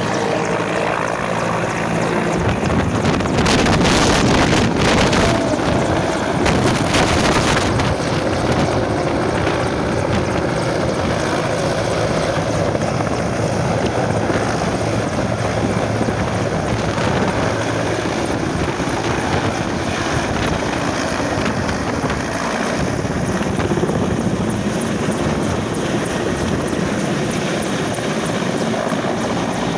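Mil Mi-17 helicopter flying low overhead: steady noise from its rotors and twin turboshaft engines. Wind rumbles on the microphone throughout, loudest a few seconds in.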